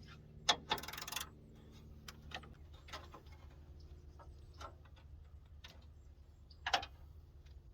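Scattered light clicks and knocks of parts and tools being handled during radiator removal. There is a short scraping rattle about a second in and a sharper knock near the end, over a steady low hum.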